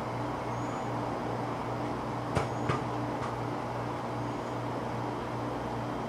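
Steady road traffic noise with a constant low hum and no air horn sounding. Two sharp clicks come close together about two and a half seconds in, with a fainter one just after.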